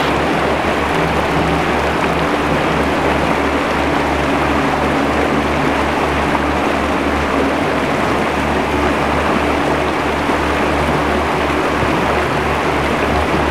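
Creek water rushing over rocky rapids, a steady loud rush, with background music underneath carrying a regular low pulse.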